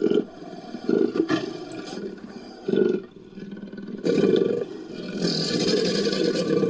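Synthetic creature vocalisation layered from big-cat and crocodilian growls and roars. Four short, loud growls come in the first four and a half seconds, then a longer, breathy roar near the end.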